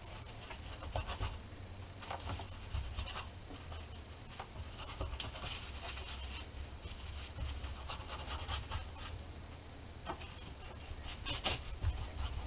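Paintbrush scrubbing acrylic paint across a board: faint, irregular scratching and rubbing strokes with a few sharper ticks, the loudest cluster near the end, over a low steady rumble.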